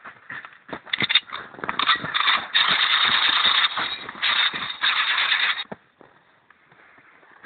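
Loud crunching and rustling of footsteps running through snow and brush close to the microphone, with many sharp crackles. It stops abruptly about six seconds in, leaving faint rustling.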